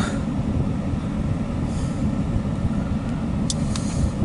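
Empty CSX coal train's hopper cars rolling past, heard from inside a vehicle as a steady low rumble. Two short sharp clicks come near the end.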